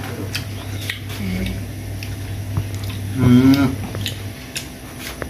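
Knife cutting and scraping the skin of a young green mango, a few short crisp clicks and scrapes, with a low hum that stops about four seconds in. About three seconds in, a short wavering vocal sound is the loudest thing.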